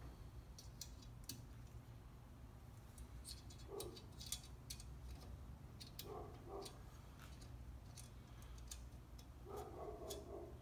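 Light metallic clicks and ticks of small valve-train parts (valve springs, retainers and locks) being handled and fitted while assembling an air-cooled cylinder head. A dog barks faintly a few times, about four, six and ten seconds in.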